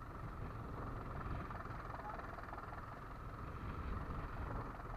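Fishing boat's engine running steadily, mixed with a steady rush of wind and sea.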